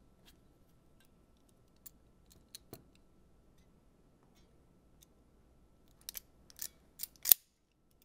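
Hand wire stripper snapping shut on a thin wire to strip its insulation: a few faint clicks about two to three seconds in, then a quicker run of sharper clicks near the end, the last one the loudest.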